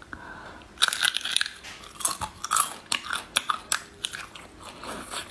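Crunching and chewing close to the mouth as a braised shellfish is bitten into shell and all: a quick run of sharp, irregular crunches that starts about a second in.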